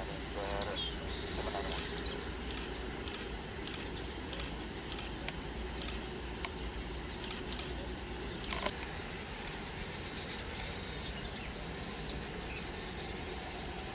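Steady outdoor ambience of insects chirring in the grass over a low, even rumble, with one sharp click about nine seconds in.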